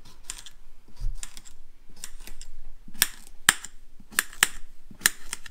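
Knife chopping cucumber on a cutting board: a series of sharp, uneven taps that get louder from about halfway through.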